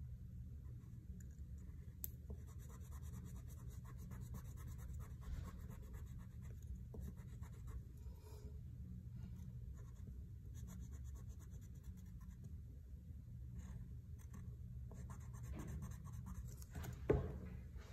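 Green wax crayon scratching faintly on construction paper in many short strokes as leaves are drawn and colored in, with a single light knock near the end.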